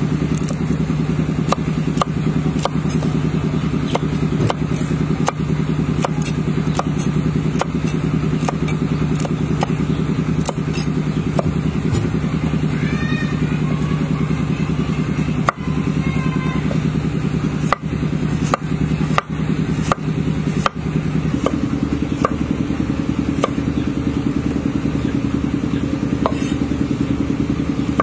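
Steady low motor drone, its pitch stepping up about three-quarters of the way through, with scattered sharp knocks of a cleaver chopping vegetables on a wooden board.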